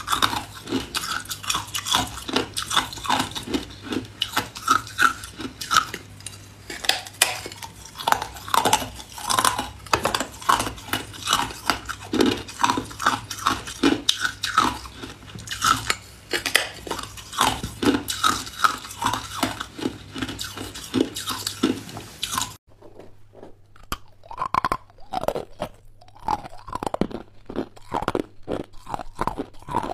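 Hard ice being bitten and chewed close to the microphone: a dense run of sharp crunches and cracks. About two-thirds of the way in it gives way to sparser crunches as a small ice chunk is bitten.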